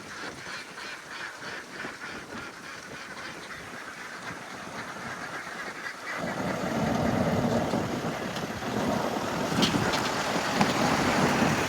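A flock of domestic ducks quacking and chattering in many overlapping calls. About six seconds in, a louder rushing noise comes up beneath the calls and continues.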